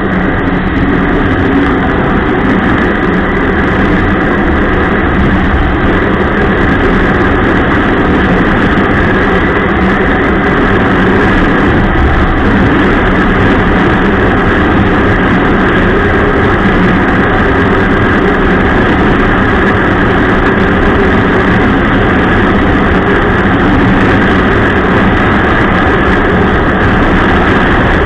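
Ski-Doo Expedition LE snowmobile engine running steadily while under way, a loud continuous drone with no change in pace.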